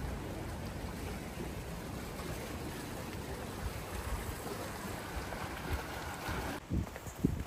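Mediterranean sea water washing against the shore in a steady wash, with wind on the microphone. The wash cuts out abruptly near the end, leaving a few low buffets of wind.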